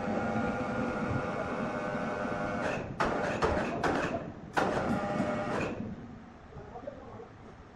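Woodworking machinery running with a steady, many-toned hum. From about three seconds in come several harsh, noisy surges, and then it quietens after about six seconds.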